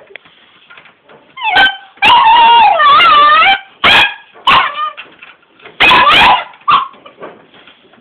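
Puppy barking and yelping close by in a series of loud, high calls whose pitch bends, the longest a wavering call of about a second and a half, about two seconds in.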